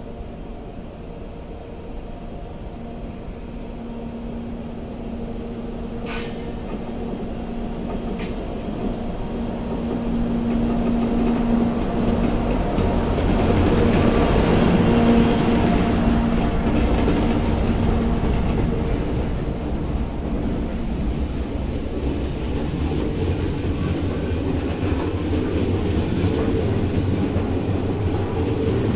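EF64 electric locomotive pulling away and passing close by, hauling an E217 series electric train. A steady hum grows louder as the locomotive goes past, with two sharp clicks early on. Then the low rumble of the E217 cars' wheels rolling past takes over.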